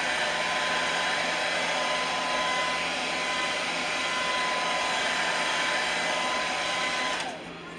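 Handheld blow dryer (hair dryer) running steadily on high, a rushing airflow with a motor whine, blown over freshly airbrushed paint on a crankbait to dry it; it is switched off about seven seconds in.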